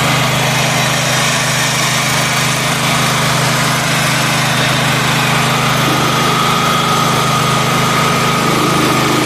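Portable generator's Honda GX single-cylinder four-stroke engine running steadily at constant speed, with a steady high whine above the engine note.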